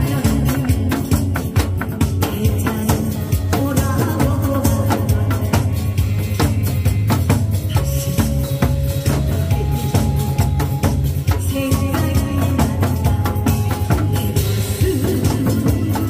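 Loud music with a busy drum beat and dense percussion over a steady bass line and held melody notes.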